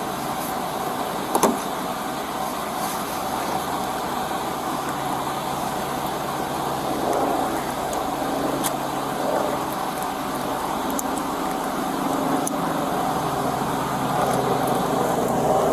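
A car engine running steadily at idle, with a single sharp knock about a second and a half in.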